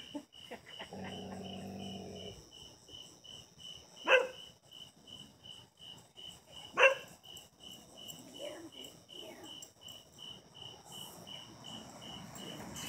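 A dog barks twice, two sharp barks about three seconds apart, over a steady chorus of crickets chirping about twice a second. About a second in, a low growl lasts for about a second.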